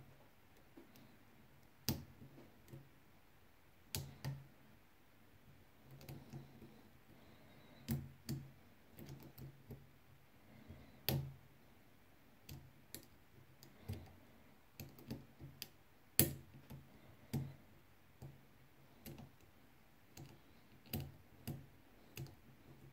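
Small metallic clicks from a pick and pin tumblers inside a four-pin euro profile cylinder lock being single-pin picked under tension. The clicks are sharp and irregular, coming singly or in short clusters every second or two.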